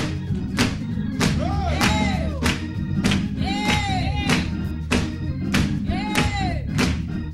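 Gospel praise music in church: a steady low organ-and-bass bed under a sharp beat about every 0.6 seconds, with a voice singing long notes that rise and fall, three times.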